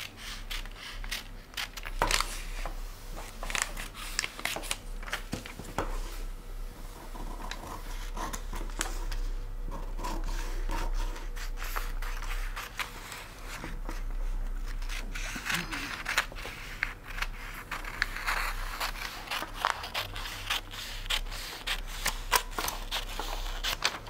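Paper dress pattern being worked by hand: scissors cutting paper, with rustling and scraping of the pattern sheets and many small clicks and taps.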